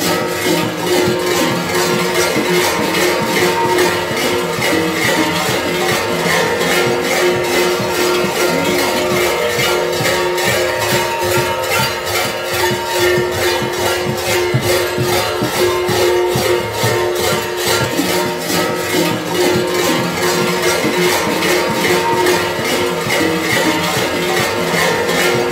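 Many kuker bells (hlopki), large metal bells hung in clusters from a kuker's belt, shaken and clanging continuously in a fast, even rhythm, with several ringing tones held underneath.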